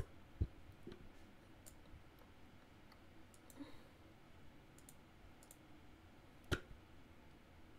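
A few isolated computer mouse clicks over a quiet background. A low knock comes about half a second in and the sharpest click about six and a half seconds in, with faint ticks between them.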